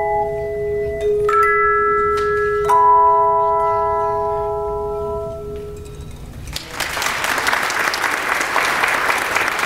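Handbell choir ringing its closing chords: a few chords struck a second or so apart, left to ring and die away. Then the audience applauds, from about seven seconds in.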